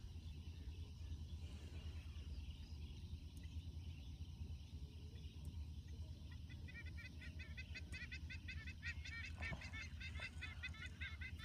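Steady low rumble with, from about six seconds in, a fast run of repeated bird calls, several a second, like a flock of waterbirds calling together.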